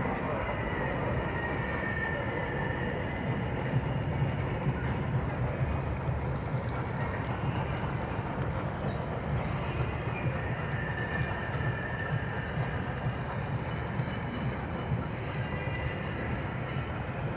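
New York City Subway R142-series train running on rails: a steady low rumble of wheels on track, with a faint high whine that swells and fades a few times.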